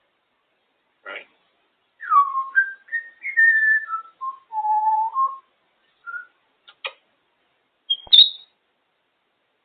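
African grey parrot whistling a run of clear notes that glide and step between higher and lower pitches, with a few short clicks and a sharp high squeak near the end.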